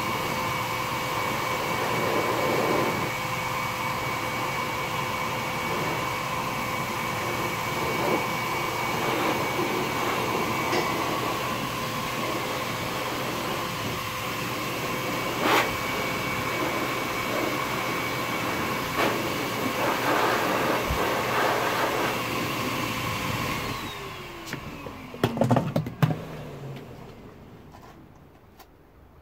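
Pet grooming blower blowing air through an Angora rabbit's wool, running steadily with a whine. About 24 seconds in it is switched off and its motor winds down in a falling whine, with a few knocks as it stops.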